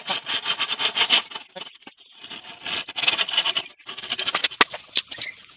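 Hand saw cutting through a green bamboo pole: quick rasping strokes in two runs, with a short break between them, then a few sharper clicks near the end.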